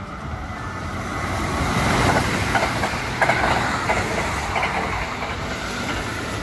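Kintetsu electric train running past the platform: a rushing rumble that builds to its loudest about two to three seconds in, with quick clacks of the wheels over the rail joints, then slowly fades.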